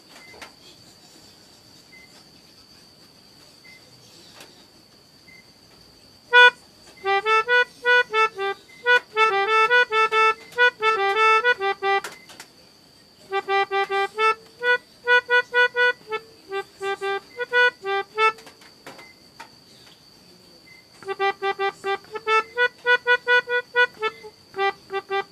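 Pianika (melodica) playing the telolet bus-horn tune in quick short notes that hop between two or three pitches. It comes in two phrases: the first starts about six seconds in and the second, after a short pause, near the end.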